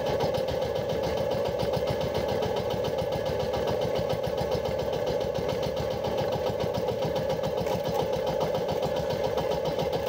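Small fishing boat's engine idling steadily with a fast, even beat.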